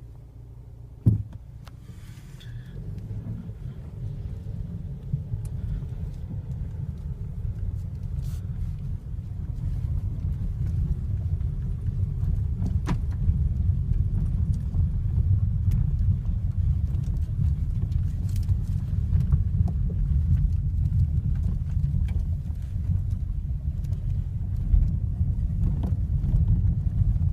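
Kia Ceed JD driving over gravel or a fine washboard surface: a steady low road rumble that grows louder over the first ten seconds or so, with a few sharp knocks from the electric power steering, a fault that shows only on such surfaces.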